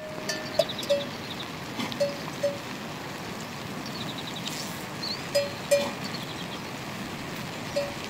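Livestock bells clanking now and then, in short rings that often come in pairs, over a steady hiss.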